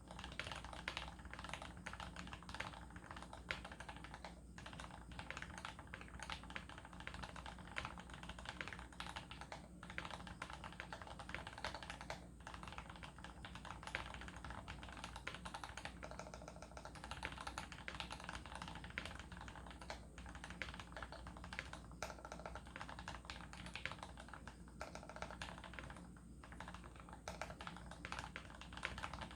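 Typing on an Archon DX2 custom mechanical keyboard with lubed Tealios linear switches in Cherry top housings, an aluminium plate and EPBT PBT keycaps: a dense, continuous run of keystrokes with a few brief pauses.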